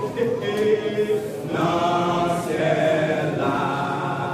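Men's gospel vocal group singing together, their voices holding long sustained notes.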